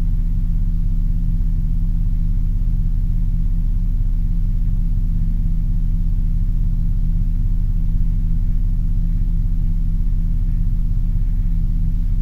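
Amplified voice-recorder playback that is mostly a steady low hum with several pitched lines. The investigators mark a faint moan about six seconds in.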